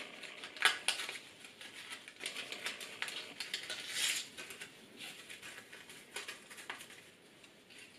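Paper strips rustling and crackling as they are threaded and pushed through each other to weave a paper heart, with a few sharper crackles, the loudest about a second in and again about four seconds in.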